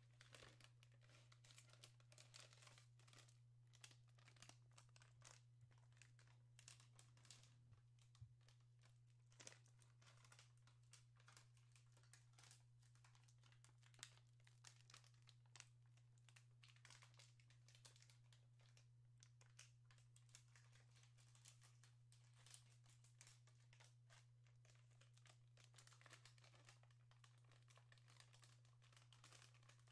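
Quiet crinkling of a plastic bag handled in the hands: a dense, irregular run of small crackles, over a steady low hum.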